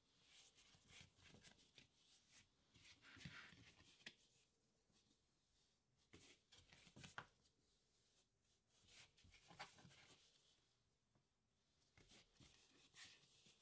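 Quiet, irregular rustling and soft pats of hands folding and rolling baguette dough on a floured wooden chopping board.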